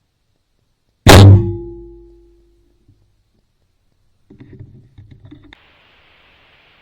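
A bow shot: the string is released with one loud, sharp crack about a second in, and the bow rings on with a steady tone that fades over about a second. A quieter, uneven low rumble follows about three seconds later.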